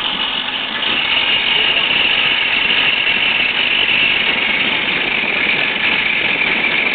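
A steady engine or machine drone with a high whine in it that drifts slightly lower toward the end.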